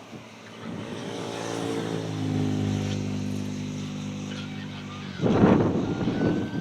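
A motor vehicle passes close by. A steady engine hum builds over a few seconds, then a loud rush of noise comes about five seconds in as it goes past.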